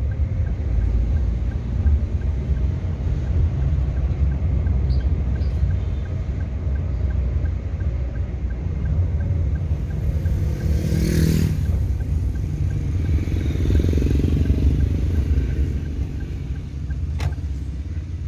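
Steady engine and road rumble heard inside a moving car's cabin, with a brief louder rush of a passing vehicle about ten seconds in and a single click near the end.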